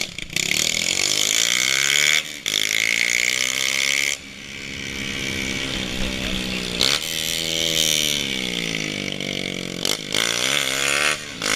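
Motorcycle engine running under way, its pitch rising and falling as it revs, with several brief drops in sound where the rider shifts gears. Wind rushes across the microphone.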